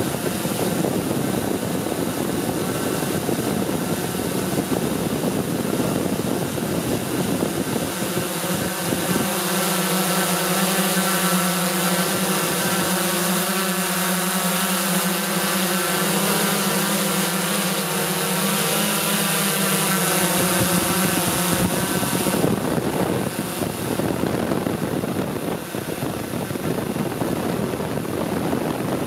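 Multicopter drone's electric motors and propellers whirring steadily, as picked up by its onboard camera: a loud, even rush with several steady, slightly wavering tones.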